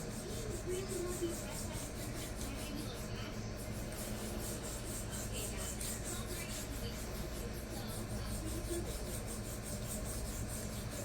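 Steel knife blade (Spyderco Z-Cut, CTS-BD1N stainless) scraping back and forth on a resin-bonded diamond sharpening stone in quick, even, unbroken strokes. The stone is working down a low spot in the edge and blending it in.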